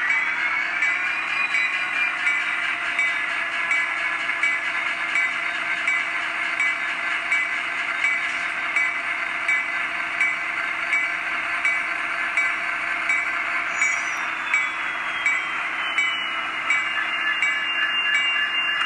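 ESU DCC sound decoder in a Kato N scale MP36 playing diesel prime-mover sound through its tiny speaker, as the model locomotive creeps along. The engine revs up in the first second or so, runs steadily with a light regular ticking, then winds back down about three-quarters of the way through.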